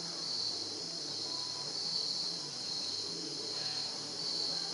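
A steady, high-pitched chorus of insects such as crickets, swelling and fading a few times.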